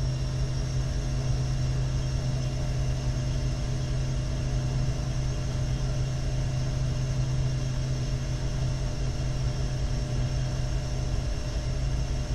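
A.O. Smith Burkay gas-fired copper-coil water heater running with its burner lit: a steady, unchanging hum and drone.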